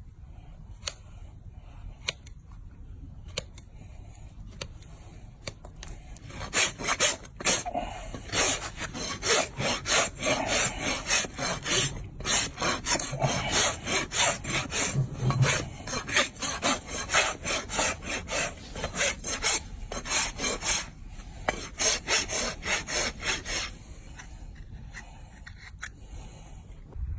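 A farrier's rasp filing down a donkey's hoof in rhythmic back-and-forth scraping strokes. After a few faint scrapes at first, the strokes start in earnest about six seconds in and stop near the end.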